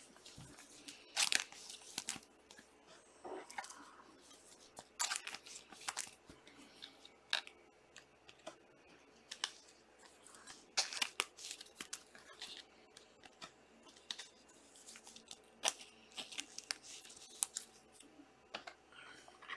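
Trading card packs and cards being handled: faint, scattered short rustles, crinkles and taps of wrappers tearing and cards sliding.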